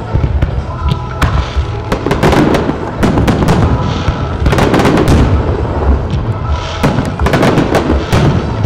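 Aerial fireworks bursting one after another, a dense, continuous run of bangs and crackles.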